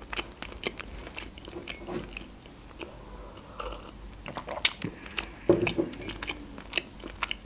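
Close mouth sounds of a person chewing a soft jam-filled bun, with many small wet smacking clicks. A sip from a mug comes about three to four seconds in.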